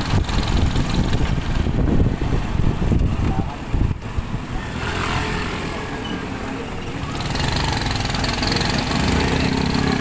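Motorcycle engine running on the move, with a rough, uneven rumble for the first few seconds that settles into a steadier engine hum from about halfway.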